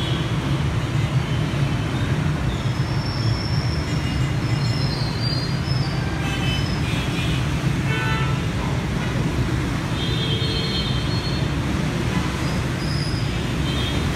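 Steady city road traffic noise, a continuous rumble of passing vehicles, with a few short high-pitched horn toots scattered through it.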